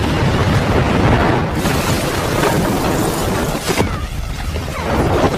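Film soundtrack of a bomb explosion: a loud, dense blast rumble with a heavy low end that carries on, swelling again about one and a half seconds in.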